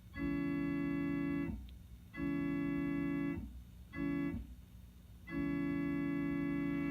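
Electronic keyboard playing a steady organ-like chord that imitates an old-cast Nathan P2 train horn. It is sounded four times, long, long, short, long, in the grade-crossing pattern.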